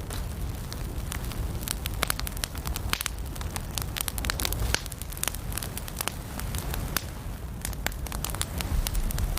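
Wood fire burning in a fireplace, crackling with frequent sharp irregular pops over a steady low rumble.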